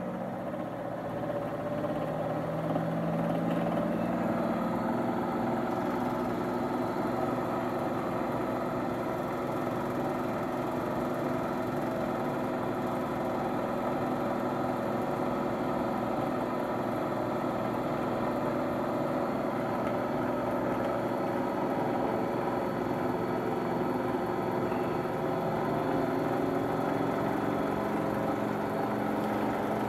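Small DC electric motor driving an AC generator, running with a steady hum while loaded by a floodlight bulb. Its pitch creeps up slightly in the first few seconds as the motor speed is turned back up.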